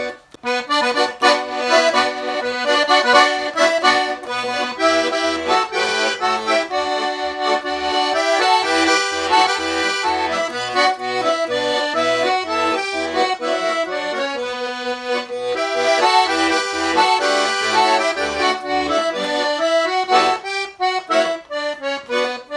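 Russian garmon (button accordion) playing a lively folk tune: a melody over a steady left-hand accompaniment of bass notes and chords, with a short break just after the start.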